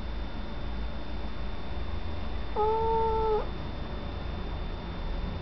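Domestic cat giving one drawn-out meow of just under a second, about halfway through, over a steady low hum.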